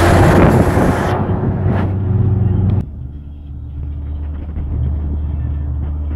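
Minibus engine hum and road noise from inside a moving ZR route-taxi van with its window open. A loud rush of wind and traffic noise fills the first second or so. About three seconds in the sound drops sharply, leaving a quieter, steady engine hum.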